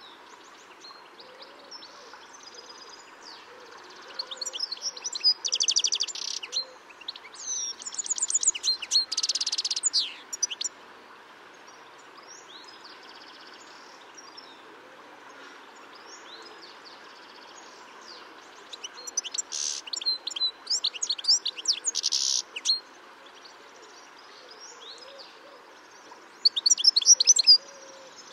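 European goldfinch calls: several bursts of rapid, high twittering notes with quieter gaps between, over a steady faint hiss.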